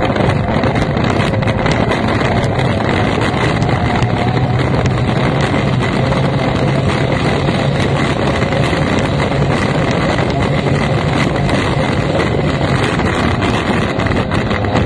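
F1 powerboat's outboard racing engine running steadily under way, with the rush of water and wind buffeting the microphone.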